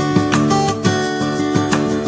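Background music: acoustic guitar playing a steady strummed and plucked pattern.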